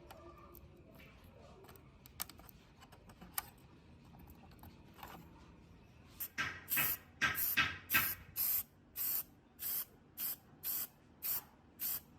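A run of about a dozen short sprays in quick succession, roughly two a second, starting about halfway in after a few faint clicks.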